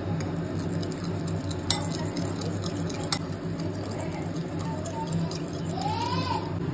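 A metal fork beating raw eggs in a ceramic bowl, with quick rapid clicks and clinks of the tines against the bowl, two of them sharper. A steady low hum runs underneath.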